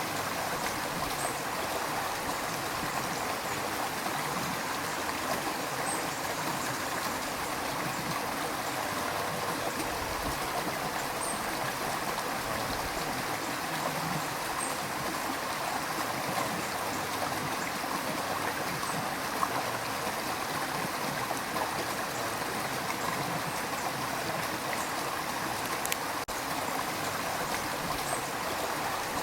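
River water rushing and gurgling steadily over rocks, an even flowing hiss with no pauses.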